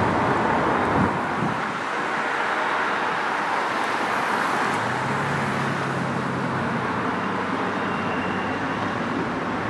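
Steady rolling noise of a double-stack container freight train crossing a steel girder bridge, mixed with cars passing on the road below.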